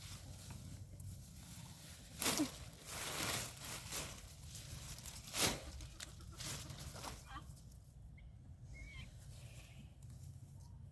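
Shovel digging into garden soil: a few scraping strikes about two, three and five and a half seconds in, the last the loudest.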